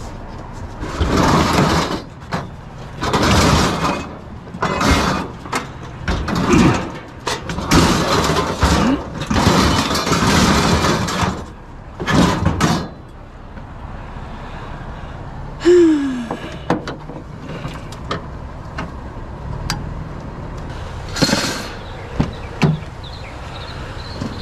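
Scrap items being handled and moved, a run of scraping and clattering noises over the first half, then sparser knocks and one more scrape.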